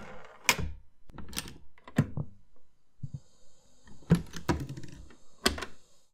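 A series of sharp, irregular clacks and knocks, roughly one a second, some in quick pairs, with a faint steady high hiss through the middle.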